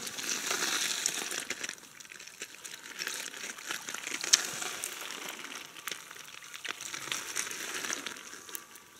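Water splashing in the shallows at a river's edge while pebbles click and crunch under a hand working among them, with one sharp click a little past four seconds.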